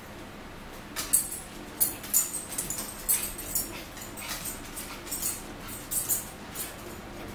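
Forks and knives clicking and scraping on plates while sausages are cut. An irregular run of sharp clicks and scrapes starts about a second in and stops near the end.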